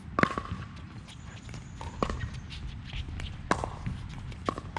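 Pickleball rally: paddles striking the hollow plastic ball, a sharp pock every one to two seconds, the loudest just after the start.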